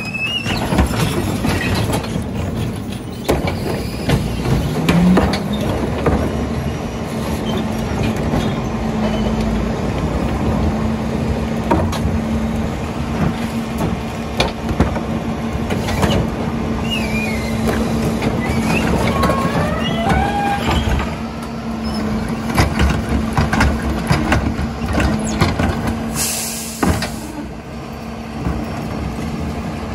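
McNeilus rear-loader garbage truck running at the curb while recycling is tipped into its hopper and packed: diesel engine and packer hydraulics, with clattering knocks and bangs of plastic carts and recyclables. A steady hum comes in about six seconds in and holds, with a few squeals midway and a short burst of air hiss near the end.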